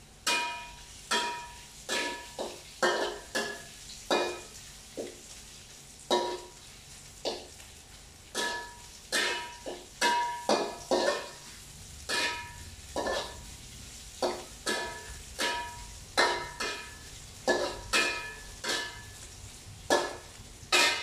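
A metal spatula clanking against a metal frying pan, irregularly a couple of times a second, each strike ringing briefly, as tofu is turned while it fries.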